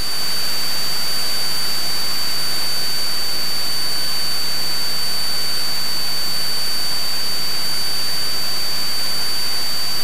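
Steady cabin noise of a Cessna 172 in cruise flight: engine, propeller and airflow as an even loud hiss with a faint low hum and a steady high-pitched whine. It swells over the first half second, then holds constant.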